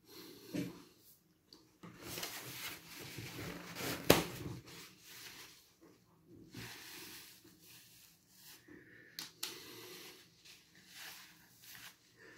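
A person breathing hard and sniffling into a paper tissue, with tissue rustling, from the burn of very spicy noodles. A sharp click about four seconds in is the loudest moment.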